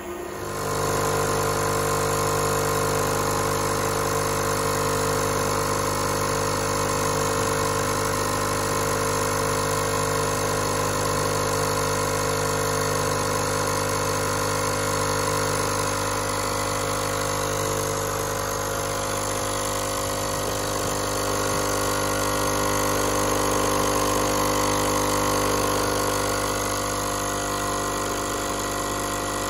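Capsule espresso machine's pump running steadily with a buzzing hum as it brews coffee into a cup, starting about half a second in.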